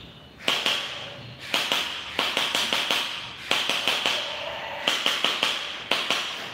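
RS99 electric gel ball blaster firing in about six short rapid-fire bursts, each a fast rattle of shots.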